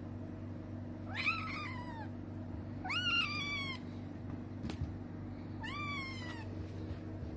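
A kitten meowing three times, each a short, high mew that rises and then falls in pitch. A single small tap sounds between the second and third mews.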